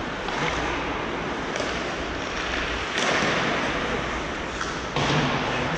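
Hockey skates scraping and carving on ice: a steady hiss with sudden surges about a second and a half, three and five seconds in.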